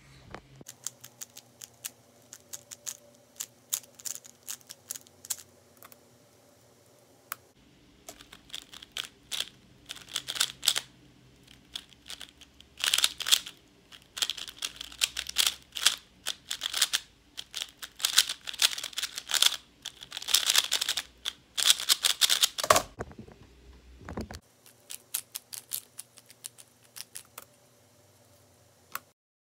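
Rapid clacking of a 3x3 speedcube's layers being turned fast in a speedsolve, here a Valk 3 M stickerless cube: scattered clicks at first, then a long dense run of quick turns, thinning out near the end. A dull thump comes near the end of the dense run.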